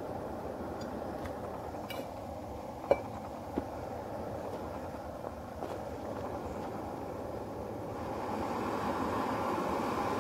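Hot water poured from a stainless steel cook pot into a coffee press, then two sharp metal knocks about three seconds in, the first the louder, as the pot is set down on a wooden picnic table. A steady rushing noise runs underneath and grows a little louder near the end.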